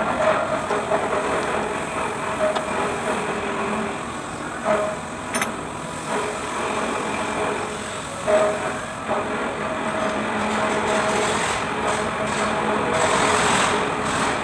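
An engine running steadily, with a few sharp clicks, one at about five seconds in.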